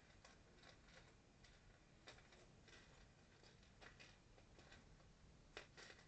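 Faint, irregular clicks of plastic Lego Technic pieces being picked up and handled, with a slightly louder pair of clicks near the end.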